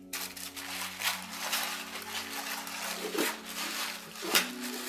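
Tissue paper rustling and crinkling in repeated handfuls as it is pulled away from a metal collectible helmet in its styrofoam packing, over soft background music with held notes.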